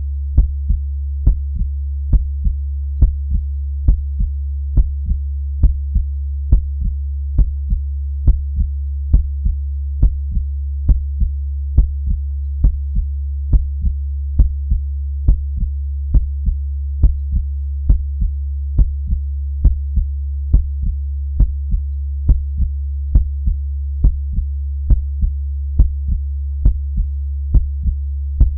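Heartbeat sound: a double beat (lub-dub) repeating slowly and evenly, a bit more than once a second, over a constant low hum.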